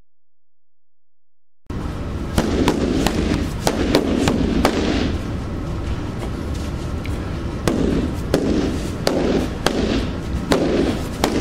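Rattan eskrima stick striking a freestanding punching bag: sharp cracks in rapid flurries, a few strikes a second, starting about two seconds in over a steady low rumble.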